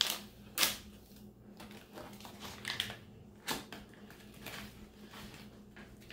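Tan MRE ration pouch of beef jerky sticks being pulled and torn open by hand: a run of short crinkling, crackling rips of the stiff laminated packaging, the loudest about half a second in.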